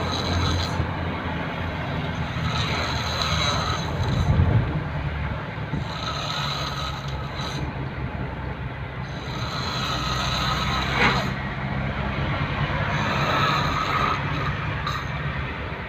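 A person snoring in a regular rhythm, one snore about every three to four seconds, over a steady low rumble.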